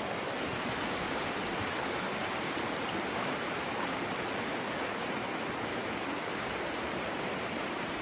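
Shallow, rocky creek rushing over stones in riffles: a steady, even rush of water.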